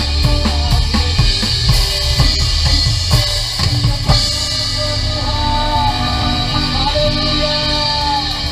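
Drum kit playing with a live band: steady drum and cymbal hits for about four seconds, then a final hit and the band holding a sustained closing chord with cymbals ringing.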